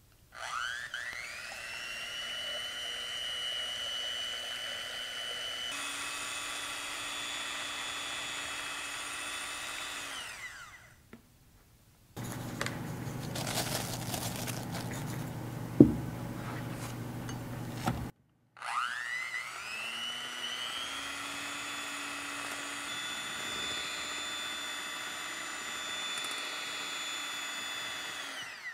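Electric hand mixer beating egg whites and sugar into meringue. The motor whines up to speed, runs steadily with a shift in pitch about six seconds in, and winds down around ten seconds. After a few seconds of rougher rustling noise with one sharp knock, it spins up again and runs until it winds down at the end.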